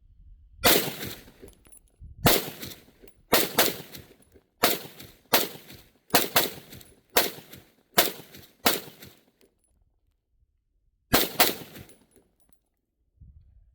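Rifle shots fired one at a time from a 300 Blackout AR pistol: about eleven shots at a steady pace, roughly one a second, some closer together, then after a pause two more in quick succession.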